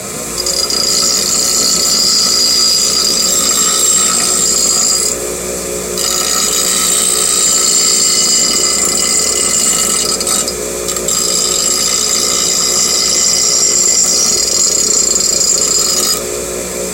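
A power grinder bevelling the end of a metal stud: a loud, steady, high-pitched grinding. It eases off briefly twice, about 5 and 10 seconds in, and drops back near the end.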